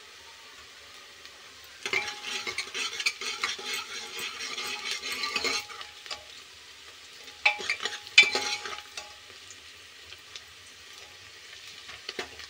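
A steel ladle stirs and scrapes onions frying in oil in a pressure cooker, with clinks against the pot. It comes in two bouts, one starting about two seconds in and a shorter one around eight seconds, with a faint sizzle in between. The onions are being browned before the spices go in.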